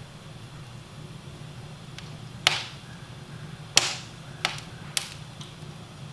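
Four sharp, unevenly spaced strikes of a hand tool cutting into pine wood, the first two the loudest, over a steady low hum.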